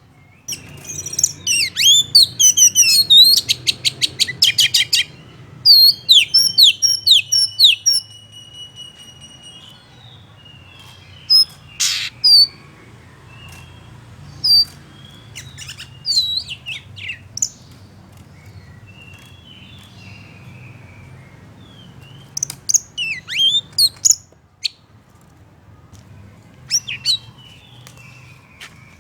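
Oriental magpie-robin singing in bursts of rapid, varied chirps and sharp whistles, with a fast rattling run of repeated notes a few seconds in and short pauses between phrases. A faint low hum runs underneath.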